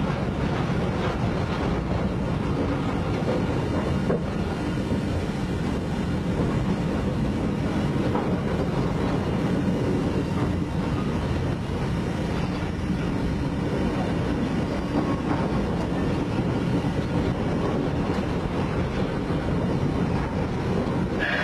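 Knox & Kane steam locomotive #58 running, heard from inside its cab: a steady, loud running noise with no breaks.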